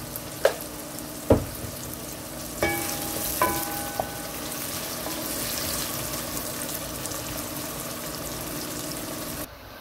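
Chopped onions sizzling steadily as they fry in hot oil in a nonstick pan. A wooden spatula stirs them, with a couple of sharp knocks and two short ringing clinks against the pan in the first four seconds.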